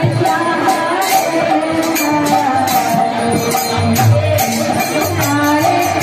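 Devotional singing (kirtan) with a steady drum beat and jingling hand cymbals keeping the rhythm.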